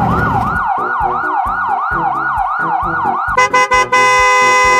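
Emergency-vehicle siren sound effect, a rapid repeating falling wail of about three sweeps a second, over a steady music beat. About three and a half seconds in, after a few clicks, it switches to a long held electronic tone.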